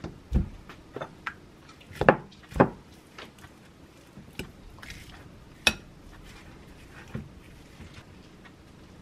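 Fork mashing warm boiled potatoes in a glass mixing bowl, the fork knocking and clinking against the glass in irregular strokes, loudest about two seconds in.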